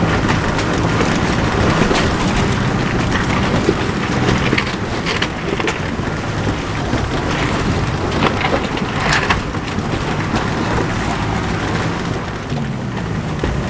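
Off-road vehicle heard from inside the cab as it drives over a rocky, wet gravel riverbed: the engine runs steadily under load while the tyres crunch and rattle over loose stones, with a few sharper knocks from rocks.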